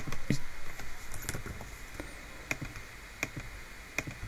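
A few sharp computer input clicks as letters are typed, about six spaced irregularly with pauses between them.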